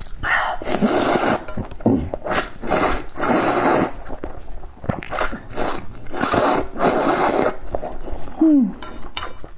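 A person slurping rice noodles from a spicy tofu soup, close to a clip-on microphone: three long, loud slurps with wet chewing and clicks between them. A short falling hum comes near the end.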